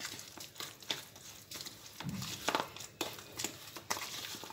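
Coarsely ground green chilli pickle mix being stirred and squished by spoon and hand in a plastic bowl: a run of irregular soft scrapes and rustles.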